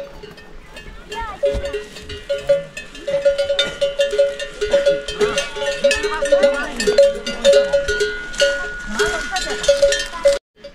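Livestock bells clanking irregularly, a rapid jumble of short rings at two pitches as the animals move. The sound cuts off suddenly near the end.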